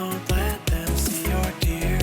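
Electronic background music with a steady, punchy bass beat and a melodic synth line.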